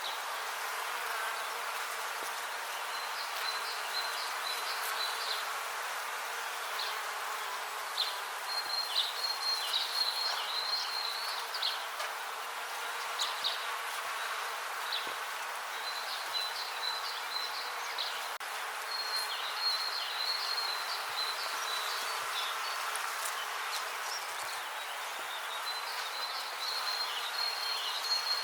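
Bees buzzing steadily in a continuous drone. Clusters of short, high chirps come and go over it, several times.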